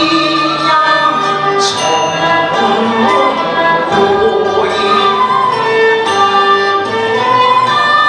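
Cantonese opera song (yueqü): a woman sings a sustained, gliding melodic line over a Chinese instrumental ensemble led by bowed strings.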